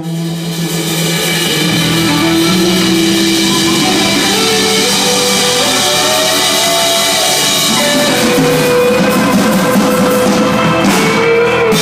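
Live rock band playing loud and steady: a drum kit struck with sticks under an electric guitar, with a long held note rising and sustaining through the second half.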